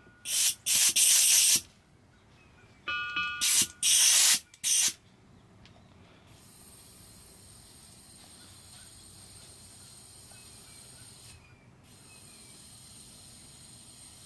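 Copper refrigerant line set being blown out with nitrogen: loud hissing blasts of gas in two clusters of short bursts, one with a brief whistle. A faint steady hiss follows.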